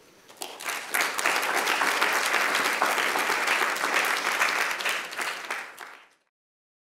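Audience applauding, building up over the first second, then fading and cutting off suddenly about six seconds in.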